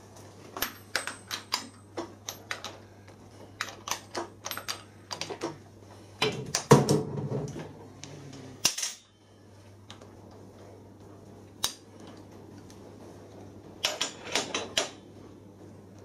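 Sharp metallic clicks and taps in quick runs, with a louder clattering stretch about six seconds in, as a Myford lathe slide handwheel and its graduated dial are handled and worked loose for removal. A faint steady low hum runs underneath.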